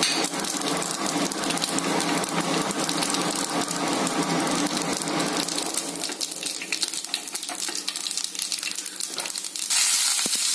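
Mustard and cumin seeds crackling and sizzling in hot oil in a frying pan, a steady spatter of small pops over low heat. Near the end the sizzle turns suddenly louder and brighter as more ingredients drop into the oil.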